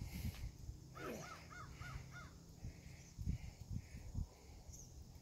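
Faint birds calling: a quick run of five rising-and-falling notes, then four or five rougher calls at about two a second.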